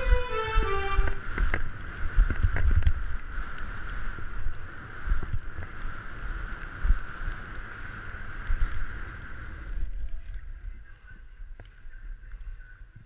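Skis running over packed snow at speed, with wind buffeting the microphone: an uneven low rumble with thumps over a steady hiss. A closing tune ends about a second in, and the rumble dies down to a faint hiss about ten seconds in.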